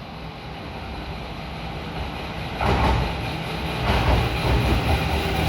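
Electric train approaching on the rails, getting steadily louder, with a sudden surge of wheel and rail noise about halfway through and another a little later as it draws close.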